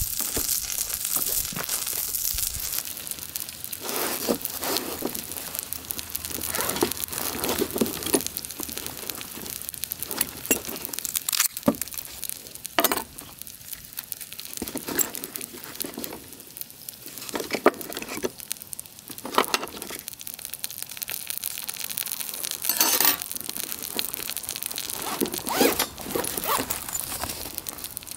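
Cooking-prep handling noises: plastic packaging crinkling and being torn, with a few light clinks. A pan's sizzle fades out in the first couple of seconds.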